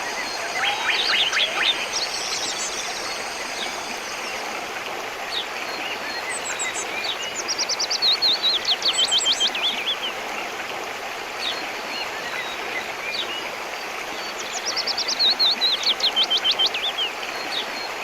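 Songbird singing over the steady rush of a river: three phrases of fast, repeated sharp notes, near the start, in the middle and near the end.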